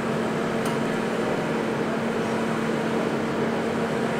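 Steady mechanical hum with a low, even drone.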